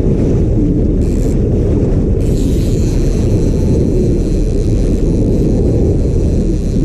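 Loud, steady low rumble of wind buffeting a boat-mounted camera microphone, mixed with the boat's motor running. A faint thin high whine starts about two seconds in and holds.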